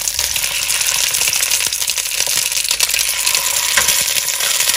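Chicken pieces frying in hot olive oil in a cast-iron potjie pot: a steady sizzle with many small crackles and pops as raw pieces go into the oil.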